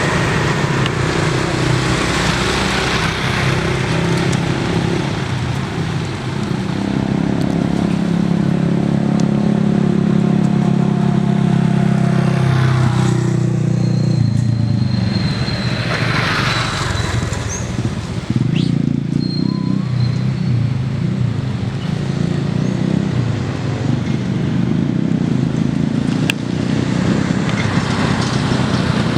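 A motor engine running steadily, its pitch holding for several seconds and then shifting about halfway through.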